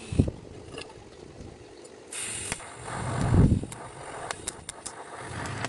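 Workshop clunks and a series of sharp clicks as a steel motorcycle muffler tube clamped in a bench vise is welded, with a low thump near the start and a louder low rumble a little past the middle.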